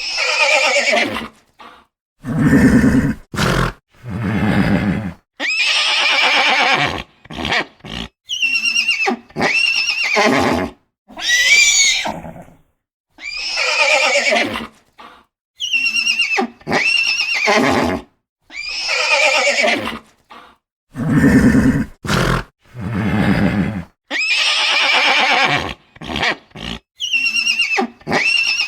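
Horses whinnying again and again, with high calls that waver and fall in pitch, mixed with a few deeper, lower calls. Each call stands alone, with short silences between them.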